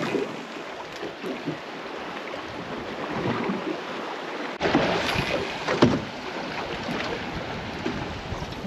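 Water lapping against the hull of a small drifting boat. Wind buffets the microphone from about halfway through, and there are two sharp clunks just after.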